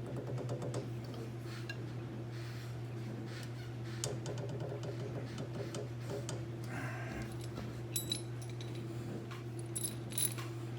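Small workbench handling noises: scattered light clicks and metallic clinks of hand tools and parts being picked up and set down, with a short scratchy stretch in the middle, over a steady low hum.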